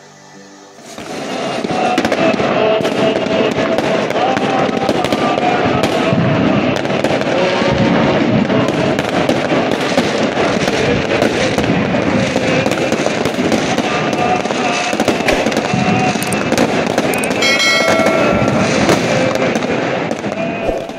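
Fireworks and firecrackers going off in a dense, continuous barrage of cracks and bangs, starting about a second in, over the voices of a large crowd.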